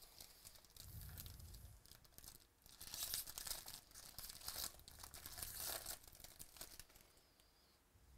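Foil wrapper of a 2018 Bowman Baseball Jumbo card pack being torn open and crinkled by hand, loudest in the middle few seconds, then dying down to faint rustles and clicks as the cards come out.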